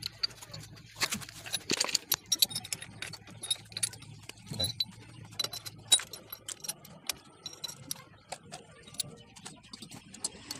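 Metal clinks and clicks of steel transmission gears and shafts knocking against each other and the aluminium crankcase as they are fitted by hand into a motorcycle engine's crankcase half. A faint low hum underneath stops a little past halfway.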